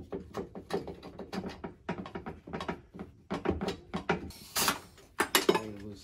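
Hand tools working a bolt on metal: a run of short mechanical clicks and clinks a few tenths of a second apart, of a kind typical of a ratchet wrench, as a transmission mounting bolt is run in.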